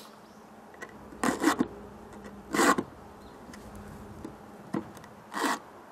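Round file being drawn across a chainsaw chain's cutter teeth: several short rasping strokes with pauses between them, as the chain is sharpened tooth by tooth.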